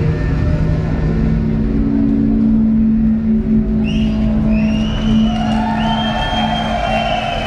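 Dark industrial electronic music ending on a held low drone over a rumbling noise bed. From about four seconds in, the audience starts whistling and cheering.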